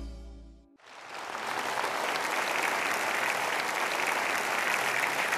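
Theme music fading out in the first second, then a studio audience applauding steadily, the clapping building up quickly and holding.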